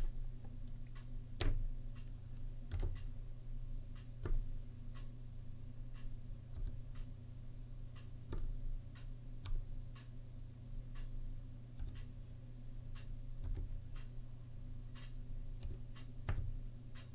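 Slow, uneven typing on a Zilpzalp ergonomic keyboard with Kailh Twilight low-profile switches: separate key clicks at about two a second over a steady low hum.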